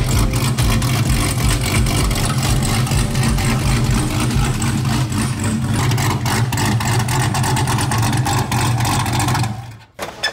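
Chevrolet Corvette C8's cammed V8 running through its exhaust, with an uneven, choppy beat. It cuts off abruptly near the end.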